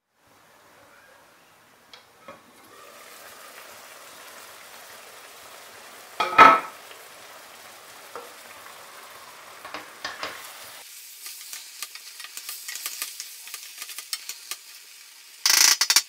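Steel pot of purslane and green-lentil stew simmering with a soft steady sizzle, with a loud clunk about six seconds in. From about ten seconds on, a wooden spoon stirs the cooked stew, scraping and clicking against the pot, with a louder scrape near the end.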